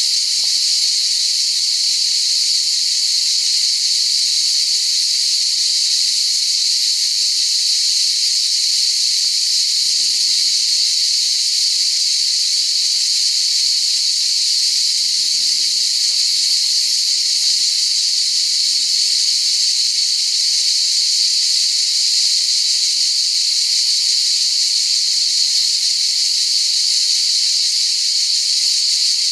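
Cicadas singing in a steady, unbroken high-pitched buzz.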